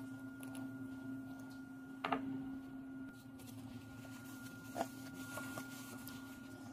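A steady electrical hum with a fainter higher tone above it, broken by two short sharp knocks, about two seconds in and again near five seconds.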